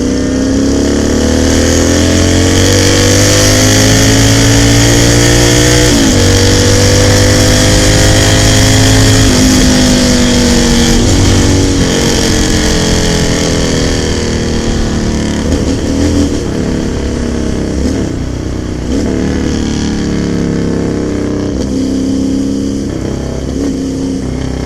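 Motorcycle engine accelerating hard, its pitch climbing, breaking at a gear change about six seconds in and climbing again. From about ten seconds in it falls away and runs on at lower, uneven revs.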